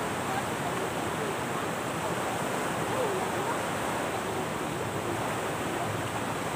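Steady rushing of waves on the shore, with faint distant voices.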